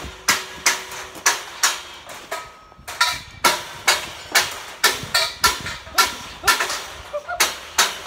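Steel scaffolding parts clanging as the scaffold is dismantled: a run of sharp metal clanks, about two or three a second, each ringing briefly.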